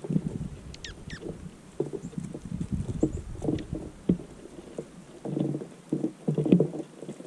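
Birds feeding outdoors: irregular soft knocks and rustling patter throughout, with two quick downward-sliding bird chirps about a second in.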